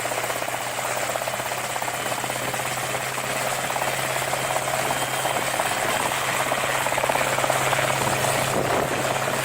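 A helicopter running steadily, its engine and rotor giving a constant low hum under a rapid, even chopping.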